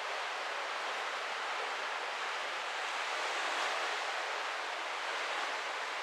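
Steady rushing hiss of the sea, swelling a little about three and a half seconds in.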